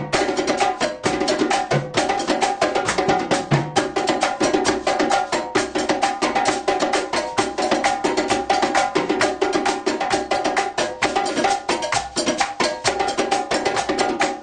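Percussion ensemble playing a fast, steady rhythm: a dense, unbroken stream of drum strokes mixed with sharp, wood-block-like clicks.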